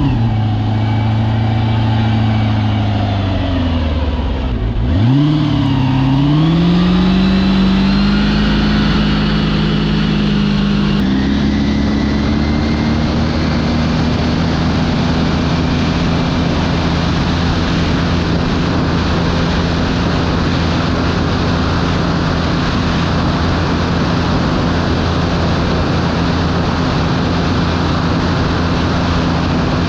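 LR4 4.8-litre LS V8 in a Yamaha WaveRunner FZR jet ski running under way. Its revs dip sharply about five seconds in and climb back. From about eleven seconds the engine holds a steady pitch under a rush of water and wind noise.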